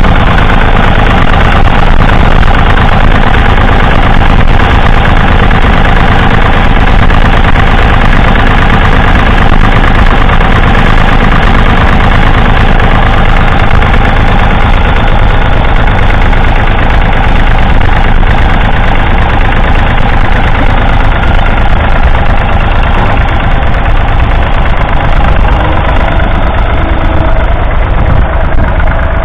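David Brown 780 Selectamatic's 2.7-litre three-cylinder diesel engine running steadily, heard close up from beside the engine block. It is working under load, pulling a plough through the field.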